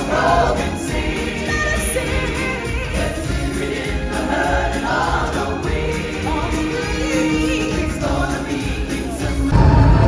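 Music with a choir singing. A louder low rumble comes in near the end.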